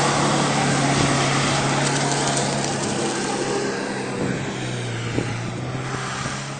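Second-generation Mitsubishi Pajero's engine running hard as the 4x4 churns through deep mud, a steady engine note under a broad rushing noise. About four seconds in, the engine note drops lower, and the sound grows fainter as the vehicle pulls away.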